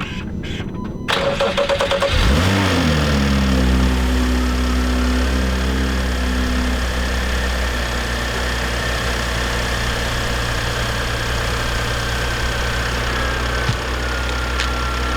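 Fire-damaged BMW parts car's engine being cranked by the starter, catching about two seconds in with a brief flare, then settling from a fast idle into a steady idle.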